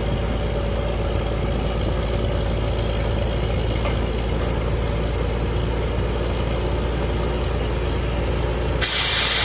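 Truck-mounted borewell drilling rig and its compressor running steadily. Near the end a loud rush of compressed air starts suddenly as the borehole blows out cuttings and mud.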